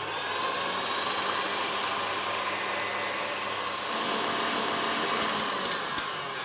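KitchenAid Artisan stand mixer running on high speed, its wire whisk beating eggs and sugar into a thick foam for a sponge batter: a steady motor whine with the whirr of the whisk in the bowl.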